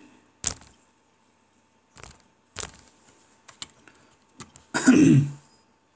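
Several sharp, separate clicks and taps at uneven intervals, the first and loudest about half a second in, much like typing or taps on a device. About five seconds in comes a short vocal sound from the person, not words.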